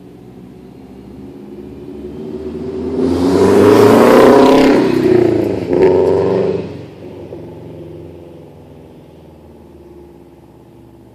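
2005 Subaru Legacy GT's turbocharged flat-four with an Invidia Q300 turboback exhaust, accelerating hard past. The engine note climbs, cuts off for an instant just before six seconds in at a gear change, climbs again, then fades away.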